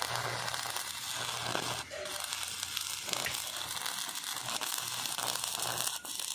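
Stick (arc) welding on steel: the electrode's arc crackling and sizzling steadily, with brief dips about two seconds in and near the end.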